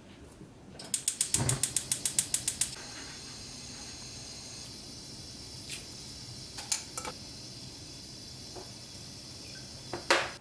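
A small mechanism ratcheting: a quick run of even clicks, about ten a second for nearly two seconds, then a steady faint hiss with a few scattered clicks.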